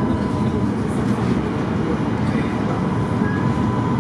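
Tatra C5T5 tram running along the track, heard from inside the car: a steady low rumble of wheels on rails with a thin steady high whine over it.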